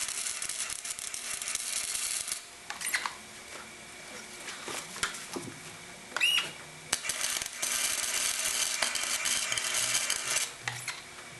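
Metal scraping and clinking from shop work: two stretches of rasping, scratchy noise a few seconds long, with scattered sharp metallic clicks and a brief squeak between them.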